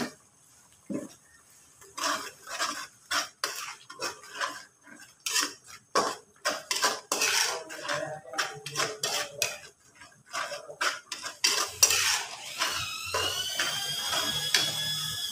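Metal spatula scraping and clinking against a stainless steel pan as blended chili paste is stirred into the fried aromatics, in quick irregular strokes. Near the end a long high-pitched call rises and then holds.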